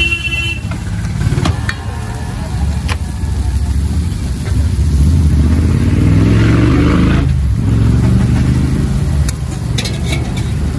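Street traffic rumbling from passing vehicles, loudest around six to seven seconds in, over eggs sizzling on a street-food griddle, with a few sharp clicks.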